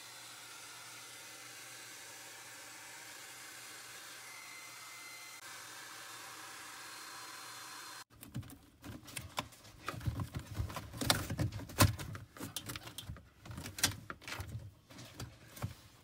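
A faint steady hiss. About halfway in it cuts off abruptly and gives way to irregular clicks, knocks and rustles of handling noise, some of them sharp and loud.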